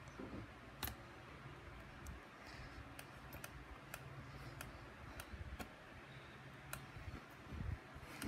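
Faint, scattered small clicks and ticks of a screwdriver turning a small screw into a laptop's hard-disk bracket.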